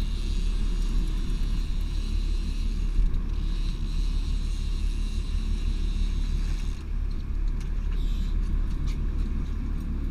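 Steady low rumble of a fishing boat under way, its engine running under wind and water noise, with a few light clicks in the last few seconds.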